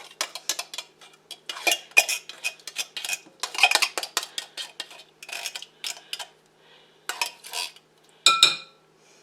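A metal spoon clinks and scrapes quickly and irregularly against a can and a mixing bowl as cream-style corn is spooned out. There is one louder, ringing clank near the end.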